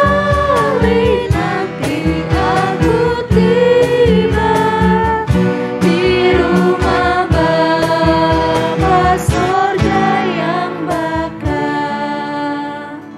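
Christian worship song, sung by voices over a band with a steady drumbeat; the music fades out near the end.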